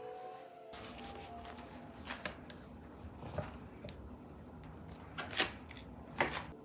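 Handling noise as a Marshall speaker is carried and set down on a cabinet: low rustling with a few sharp knocks, the loudest two near the end. Music cuts off within the first second.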